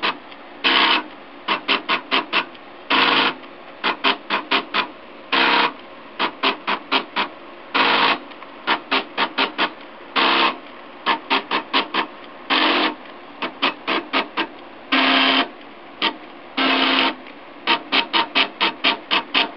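Homemade 3D printer's stepper motors whining in quick pulses as the print head shuttles back and forth, several short moves a second with a longer move about every two and a half seconds.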